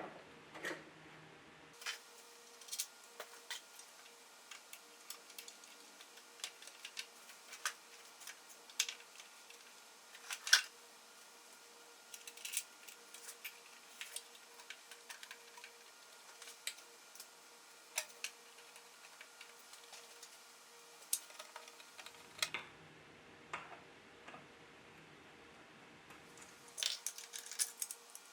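Scattered light clicks and taps of small metal parts and hand tools being handled while a Dremel scroll saw is put back together, over a faint steady hum.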